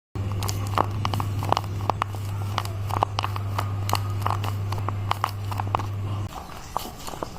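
Paper being handled and crinkled, with many quick irregular crackles and taps, over a steady low electrical hum that cuts off about six seconds in.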